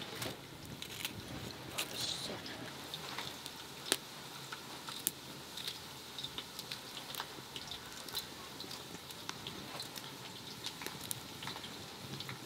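Wood fire crackling with irregular sharp pops, alongside soft crunches of a knife cutting a green pepper held in the hand.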